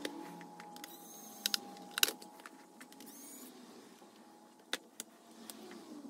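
Hands and small tools handling a laptop on a workbench: a few sharp clicks and taps, a quick pair about a second and a half in, the loudest about two seconds in, and another pair near the end.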